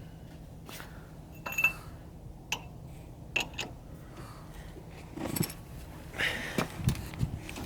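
Scattered metallic clinks and knocks of hand tools on car wheel-hub parts, one ringing clink early and a cluster of knocks near the end, over a steady low hum.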